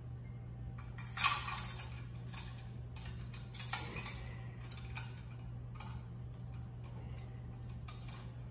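Irregular metal clinks and clanks as a heavy turbocharger is handled and set onto tacked stainless steel exhaust headers; the sharpest clank comes about a second in. A steady low hum runs underneath.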